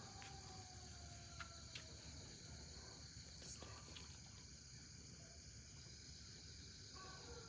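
Faint, steady, high-pitched chorus of night insects, with a few faint clicks.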